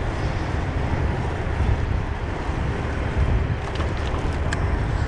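Wind rumbling across the microphone of a moving eBike, a steady low noise, with a few light clicks from about three and a half to four and a half seconds in.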